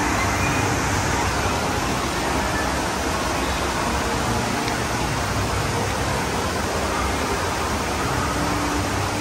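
Steady rush of water streaming over an indoor surf simulator, a continuous even noise with no breaks.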